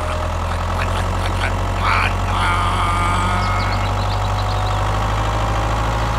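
A tractor engine idling steadily with a low, even hum.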